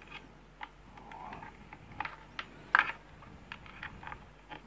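Light rustling of multimeter test leads being handled, with scattered small clicks and one sharper click just under three seconds in as the probes' banana plugs are pushed into the meter's jacks.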